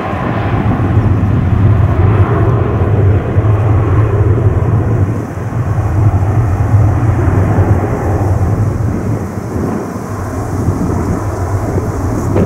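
Jet engines of a Boeing 737-300 running hard as the airliner rolls down the runway away from the listener: a loud, deep, steady rumble that dips briefly twice.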